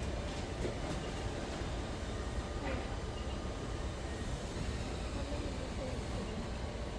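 Steady low rumbling background noise, even and unbroken, with a few faint clicks just under a second in.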